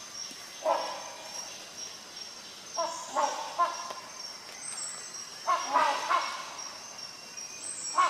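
Rhinoceros hornbill calling with loud, honking notes: a single call, then two runs of several quick notes a few seconds apart.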